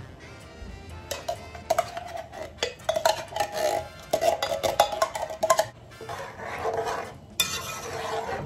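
A metal spoon scraping and clinking against the inside of a tin can as canned pigeon peas in coconut milk are scooped into a metal pot, irregular clicks and scrapes; near the end, a spoon stirring the liquid in the pot.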